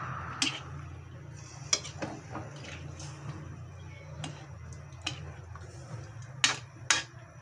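Metal ladle stirring chunks of roast pork in a metal wok, clinking sharply against the pan several times, with the two loudest knocks close together near the end. A low steady hum runs underneath.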